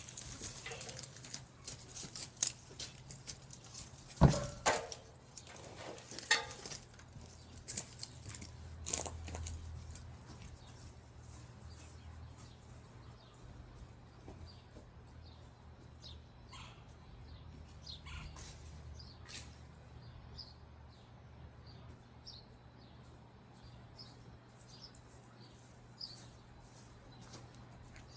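Cut tree branches and brush being handled: scattered rustles, crackles and knocks, loudest a little over four seconds in, thinning out after about ten seconds. Faint short bird chirps follow over a low steady hum.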